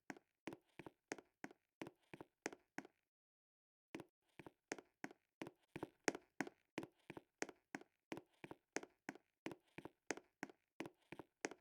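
Faint, evenly spaced taps or clicks, about five a second, with a pause of about a second roughly three seconds in.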